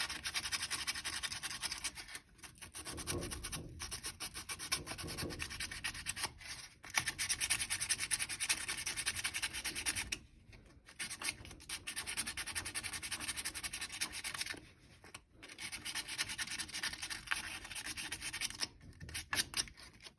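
Sandpaper scrubbing a corroded gas-furnace flame sensor rod in rapid back-and-forth strokes, in several spells broken by short pauses, sanding the corrosion off so the rod can sense the flame again.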